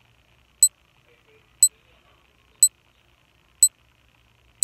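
Countdown timer sound effect: a short, high beep once every second, in step with an on-screen stopwatch.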